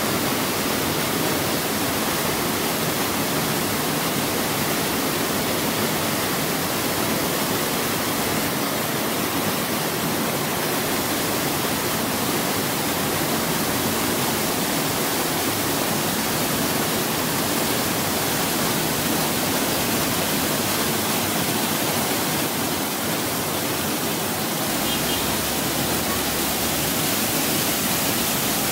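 Waterfall cascading and crashing onto rocks: a steady, even rush of falling water.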